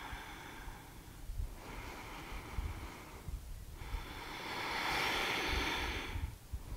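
A woman breathing slowly and deeply close to the microphone: long, airy breaths in and out with short pauses between, the loudest from about four to six seconds in. Low gusts of wind rumble on the microphone.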